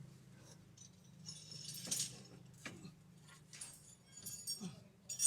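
Scattered light metallic clinks and clicks, clustered about one and a half to two seconds in and again near the end, over a steady low hum.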